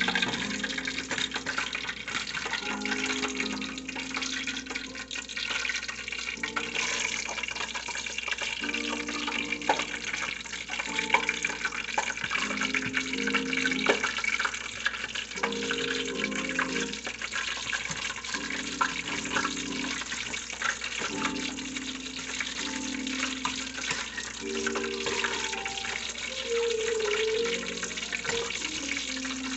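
Breaded calamari frying in hot oil: a steady sizzle with many small pops and crackles. Background music with held notes plays over it.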